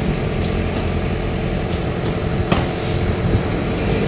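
Excavator engine running with a steady low rumble, with a few sharp knocks of demolition debris or metal.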